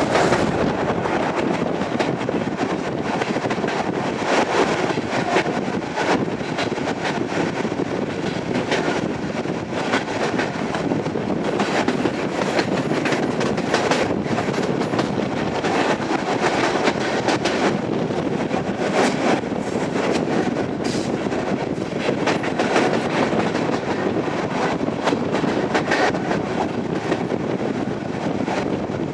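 ER2T electric train running along the line, heard from on board: a steady rumble of the running gear with wheels clicking and clattering over the rails.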